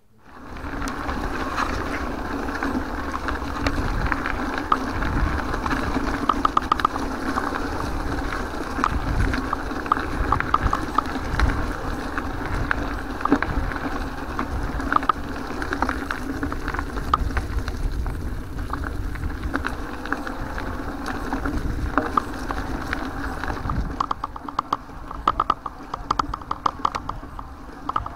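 Mountain bike riding over a dirt and gravel track, heard from a handlebar camera: continuous tyre and frame rattle with a low wind rumble on the microphone and many small clicks. The clicking turns into rapid, even ticking near the end.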